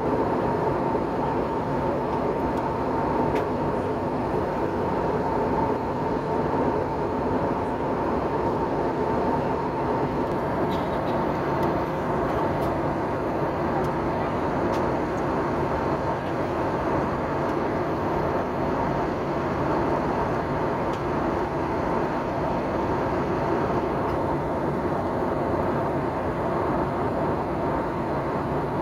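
Steady airliner cabin noise after landing: an even rumble with a thin steady whine running through it.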